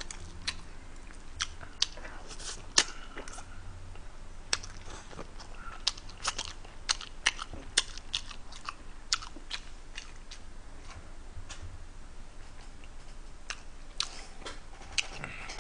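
A person chewing a mouthful of tteokbokki and sauced fried chicken, with many short, sharp mouth clicks and smacks at irregular intervals.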